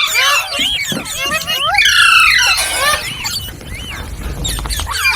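Green parrots squawking and chattering: many quick rising and falling calls overlapping, loudest about two seconds in.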